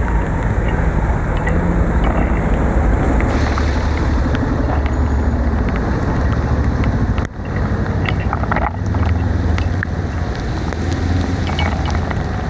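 Steady low rumble of wind and road noise while cycling in heavy rain, with scattered sharp ticks of raindrops. The noise dips briefly about seven seconds in.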